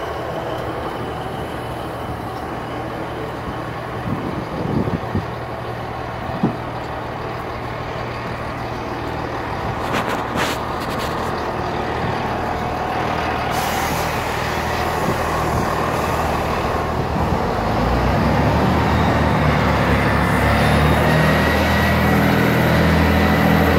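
Diesel passenger train's engine running at the platform, a steady low hum that grows louder about three-quarters of the way through as the engine is throttled up, with a rising whine. A few knocks from the phone being handled in the first half.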